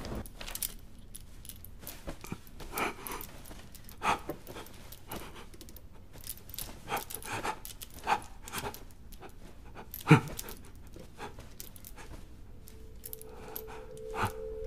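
Metal handcuffs clinking and rattling against a bed frame in short irregular clicks as a cuffed man tugs at them, with panting breaths. A heavier thump comes about ten seconds in, and a steady low tone comes in near the end.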